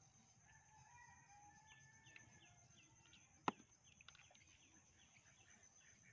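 Faint, distant rooster crowing from about half a second in to two and a half seconds, over small birds chirping in a quick repeated series. One sharp click about three and a half seconds in is the loudest sound.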